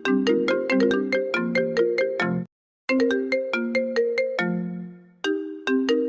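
Apple iPhone ringtone melody, run through audio effects: a repeating phrase of short, bell-like plucked notes that cuts out briefly about two and a half seconds in, then starts over.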